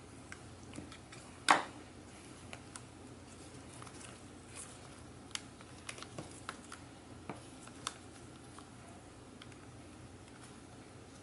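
Gloved hands handling parts inside an opened MacBook Pro: one sharp knock about a second and a half in, then scattered light clicks and taps of small plastic and metal parts.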